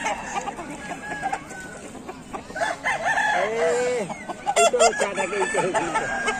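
Several Aseel chickens clucking, with a rooster crowing in a long drawn-out call a little past halfway. A few sharp clicks come just after it, the loudest sounds here.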